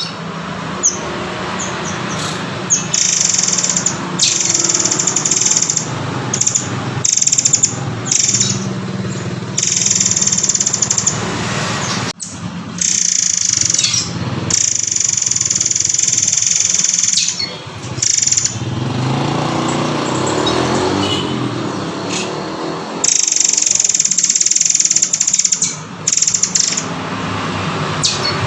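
Murai air (murai kopi) songbird singing: high, drawn-out whistled phrases a second or two long, repeated again and again, over a steady low hum.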